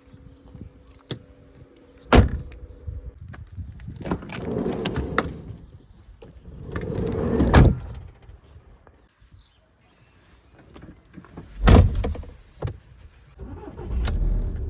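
Van doors being shut: several heavy slams, one at the end of a longer rolling slide like a sliding side door running shut. Near the end an engine starts and settles into a low running rumble.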